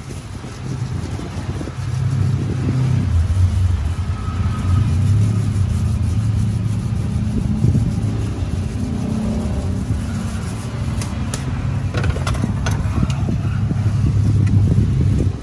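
Low rumble of road traffic going past, rising and falling, with a few light clicks and taps in the last few seconds.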